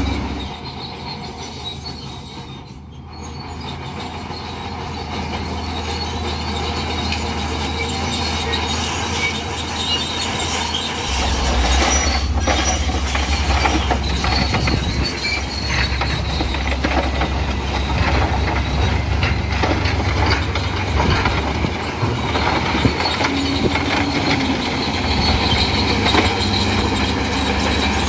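Crawler bulldozer working: its diesel engine running with the continuous metallic grinding and clatter of its steel tracks. The sound dips briefly about three seconds in, and the engine's low hum grows stronger about eleven seconds in.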